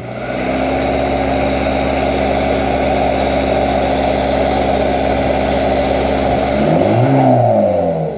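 Audi A3 engine held at steady raised revs, then released near the end, its pitch swinging down and up as the revs fall, a warble that the owner calls the 'turkey sound'.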